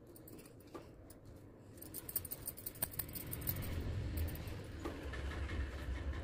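Faint soft handling sounds of hands rolling small balls of rice-flour dough over a steel plate, with a few light ticks and a low rumble that comes up after about two seconds.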